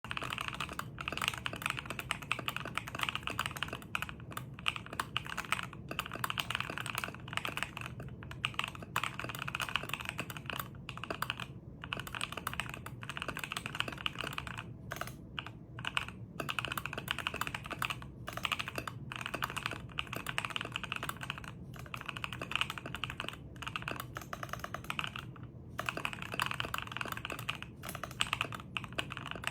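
Computer keyboard being typed on very fast and continuously, a dense run of key clicks with brief pauses between bursts of words.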